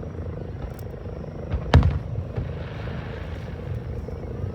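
Aerial fireworks shells bursting: one loud sharp boom a little under two seconds in with a rolling low rumble after it, then a soft crackle over a steady low rumble of the display.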